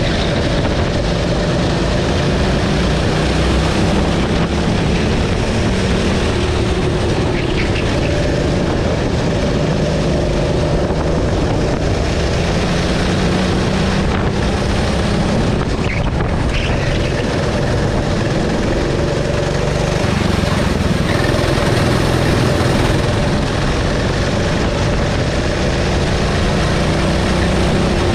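Racing kart's engine at full race pace, heard from the driver's seat, its pitch rising and falling as the driver accelerates and lifts through the corners.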